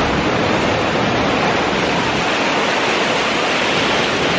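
Loud, steady rushing of falling water from a waterfall.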